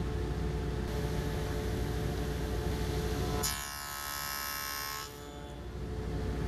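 Table saw with a dado blade running steadily. For about a second and a half midway the sound turns higher and hissier as the blade cuts a box-joint slot in the board.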